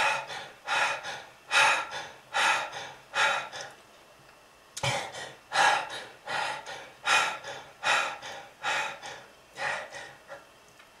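A person gasping for breath, one harsh heavy breath about every three-quarters of a second, breaking off for under a second about four seconds in.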